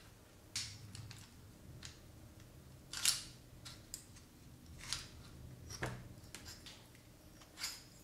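Scattered clicks and scrapes from a Taurus PT99 airsoft pistol's slide, barrel and recoil spring being handled as the barrel is worked forward out of the slide. About six short clicks, the sharpest one about three seconds in.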